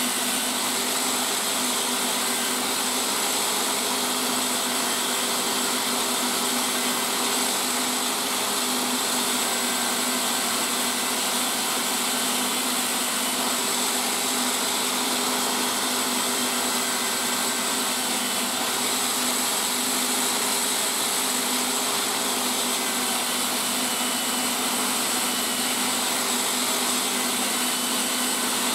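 Bench-clamped electric rotary tool spinning a felt buffing wheel, running steadily with a constant hum and high whine, while the edge of a leather sheath is burnished against the wheel.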